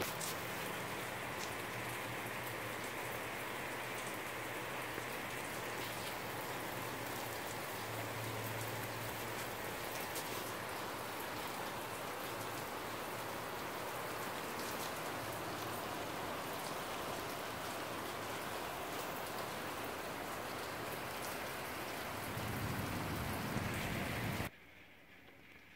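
Moderate rain falling steadily, a constant hiss with individual drops ticking on nearby surfaces. It cuts off abruptly near the end.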